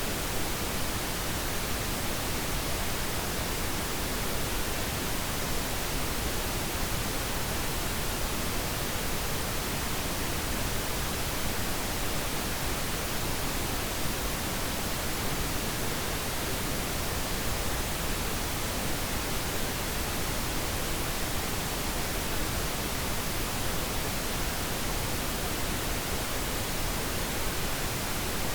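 Pink noise: a steady, even hiss spread evenly across the whole range, with no change in level, used as a sleep aid for babies.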